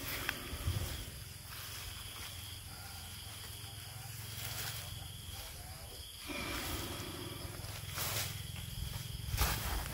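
A sleeping baby Asian elephant breathing, with a few brief rustles. Steady chirping of night insects such as crickets runs behind.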